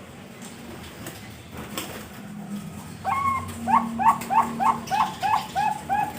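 A Bangkok-line zebra dove (perkutut) cooing. About halfway in it breaks into a fast run of short rising notes, about three a second.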